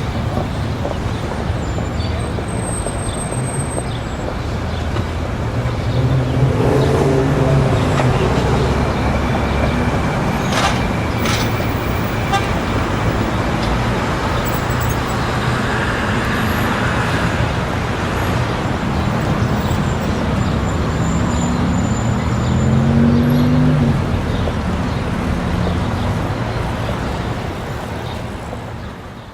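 City street ambience: steady traffic noise with the chatter of a crowd, vehicles passing with engines rising in pitch about two-thirds through, and a horn tooting. The sound fades out near the end.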